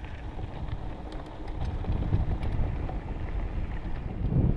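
Wind buffeting the microphone of a camera riding on a mountain bike, a low rumble that grows louder near the end, with faint ticks and rattles from the bike rolling over the dirt trail.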